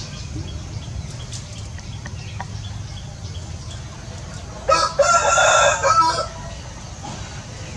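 A rooster crowing once, a loud call of about a second and a half that starts about two-thirds of the way through, over a steady low background rumble.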